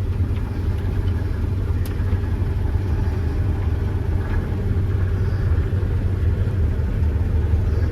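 Combine harvester running steadily under load while cutting soybeans, a constant low rumble heard from inside the cab.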